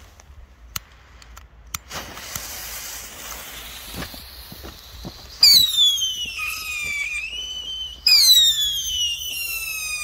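Funke Silber Heuler (FLH-2) whistling firework. A few sharp pops and a hiss come first. About five seconds in a loud whistle starts suddenly and slides down in pitch, and a second whistle starts about eight seconds in and falls the same way.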